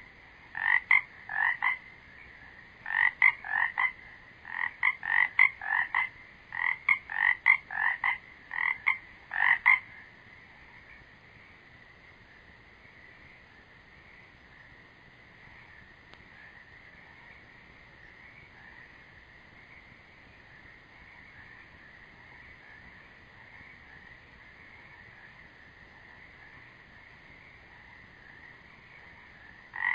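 Frogs croaking: loud repeated calls in quick runs of two or three for the first ten seconds, then stopping, leaving only a faint, steady background chorus.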